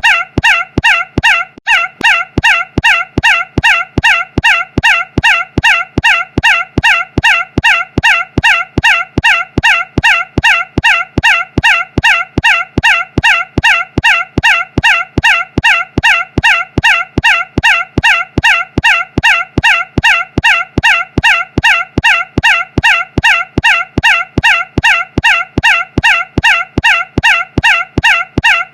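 A short, shrill squawk-like sound repeated in a tight, identical loop, about two and a half times a second, with a brief hitch about a second and a half in.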